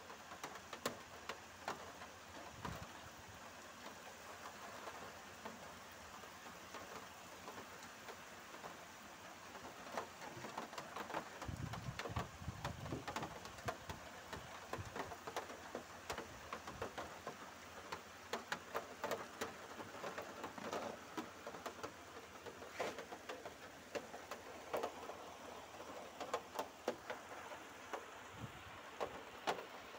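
Heavy rain pouring steadily, with many sharp drip taps close by and a brief low rumble about twelve seconds in.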